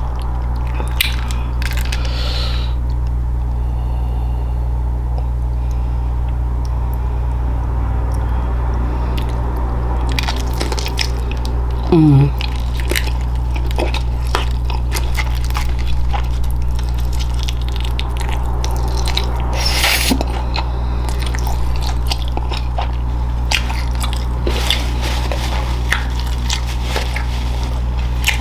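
Close-miked chewing and biting of food, with scattered wet clicks and an occasional crunchy bite, over a steady low hum. About twelve seconds in there is a short, louder low sound that falls in pitch.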